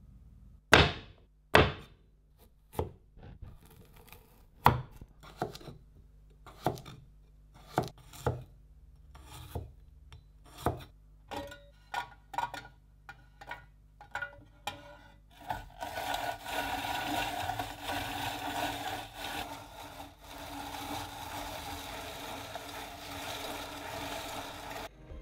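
A steel cleaver chopping carrots on wood, a sharp chop every half second to second. About two-thirds of the way through this gives way to a continuous rasping as carrot is grated in the hand-cranked drum of a 1929 Alexanderwerk rotary grater.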